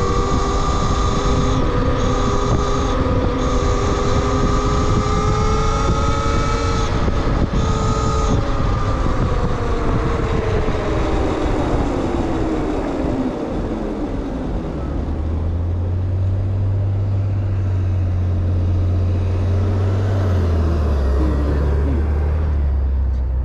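Talaria Sting R MX4 electric dirt bike riding along: the electric motor whines under heavy wind rush. The whine climbs a little, then glides down and fades over several seconds as the bike slows. A low steady hum takes over in the second half and drops in pitch a few seconds before the end.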